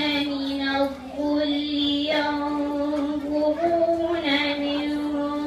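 A girl reciting the Quran in a melodic chanted style (tajweed), holding long drawn-out notes, with a short breath about a second in.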